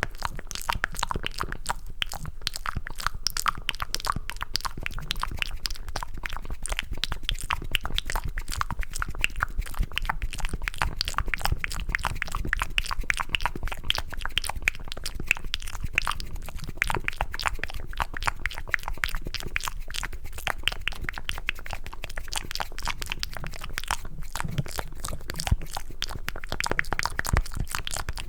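Close-miked, cupped ASMR mouth sounds: a rapid, continuous run of wet clicks and smacks from lips and tongue that sound like chewing mac and cheese.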